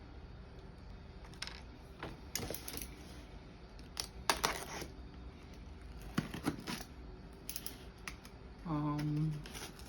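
A cardboard box being handled and opened: scattered scrapes, rustles and light clicks. There is a short hummed "hmm" near the end.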